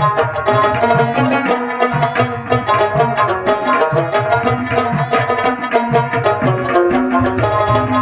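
Background instrumental music with a quick, steady hand-drum beat under held melodic notes.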